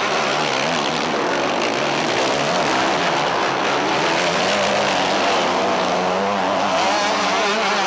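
Several motocross motorcycle engines revving together, a dense mix of overlapping engine notes rising and falling as the riders work the throttle.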